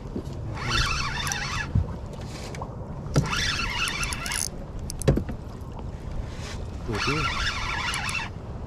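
Shimano Stradic spinning reel being cranked in three short spurts of about a second each, retrieving line. A steady low rumble runs underneath, with a few short knocks.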